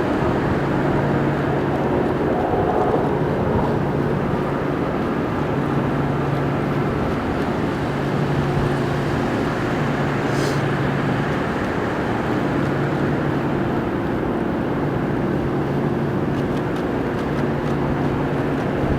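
Steady outdoor background noise with a low hum that comes and goes.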